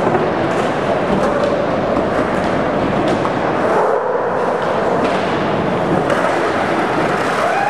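Skateboard dropping in and rolling through a concrete bowl: a steady rumble of wheels on concrete, with a few sharp clacks from the board.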